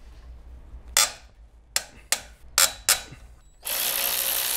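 A few separate sharp metallic clicks of a wrench on an exhaust bolt, then, near the end, a hand ratchet starts clicking rapidly and continuously as the loosened bolt is spun out.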